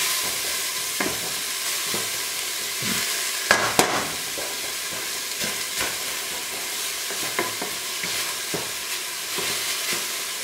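Diced onion sizzling in a lightly oiled stainless steel pot, being browned while a wooden spatula stirs it, with irregular scrapes of the spatula against the pot. The loudest scrape comes a little over three seconds in.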